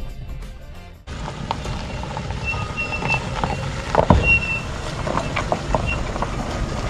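Daihatsu Feroza SUV rolling slowly along a dirt track, its engine running low while the tyres crunch over stones and dry leaves, with a sharper knock about four seconds in. The first second is the tail of background music fading out.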